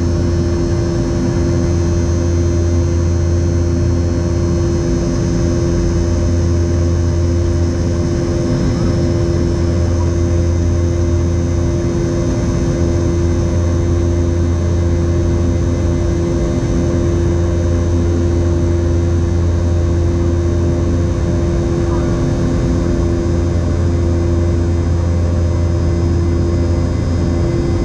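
Steady engine and cabin drone inside a Boeing 717-200, its rear-mounted Rolls-Royce BR715 turbofans giving a constant hum with several steady tones over a rushing background.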